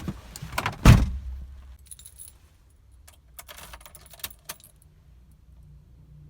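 Car keys jangling and clicking for a few seconds, with a heavy thump about a second in.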